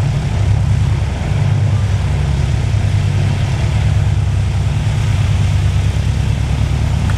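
Four Wright R-3350 radial engines of a Boeing B-29 Superfortress running at taxi power as the bomber rolls along the taxiway: a loud, steady, throbbing low drone.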